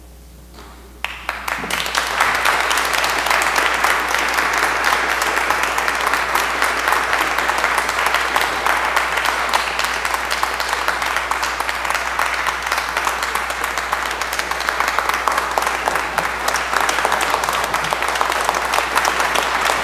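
Congregation applauding: a sustained round of clapping that breaks out suddenly about a second in and holds steady.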